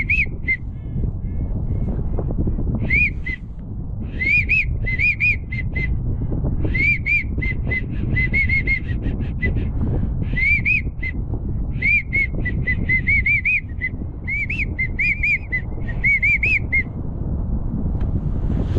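Whistled duck calling: a wigeon/pintail-style whistle blown in repeated series of short rising-and-falling notes, some running into quick trills, over steady wind noise on the microphone.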